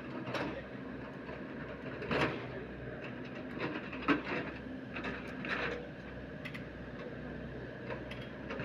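Steady machine hum with irregular knocks and clatter.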